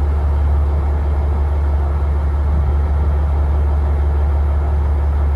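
Boat engine running steadily, a constant low drone with no change in pitch or level.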